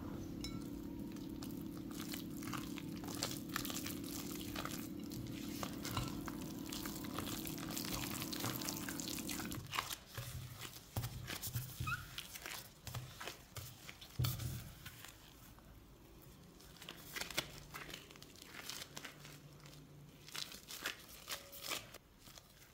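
Silicone spatula stirring and scraping a wet flour-and-oil dough in a glass bowl over a low steady hum that cuts off about ten seconds in. Then gloved hands knead the dough in the bowl: plastic gloves crinkling, with soft squishes and thuds.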